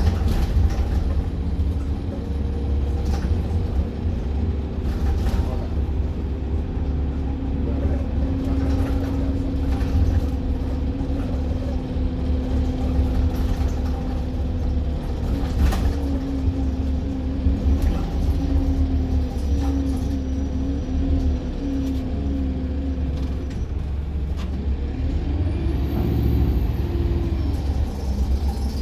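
Inside a moving double-decker bus: steady low engine and road rumble, with a drivetrain hum that shifts in pitch as the bus speeds up and slows, and scattered rattles and knocks. A brief high whistle rises and falls near the end.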